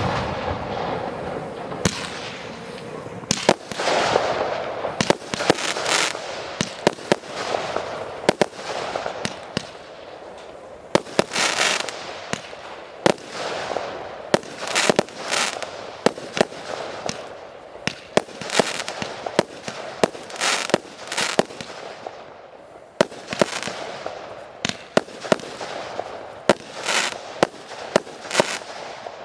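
Fireworks display: a steady run of aerial shell bursts, sharp bangs at irregular intervals, some followed by a crackling fizz, with a faster cluster of reports near the end.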